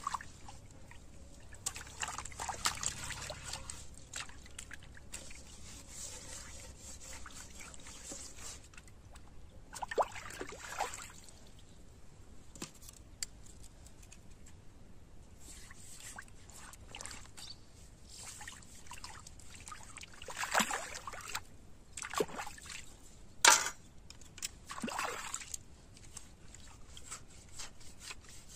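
Water trickling and sloshing, broken by short splashes at uneven intervals; the sharpest splash comes near the end.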